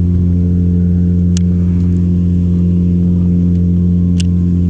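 Boat motor running steadily, a constant-pitch hum with no change in speed. Two faint ticks sound over it, about a second and a half in and again about four seconds in.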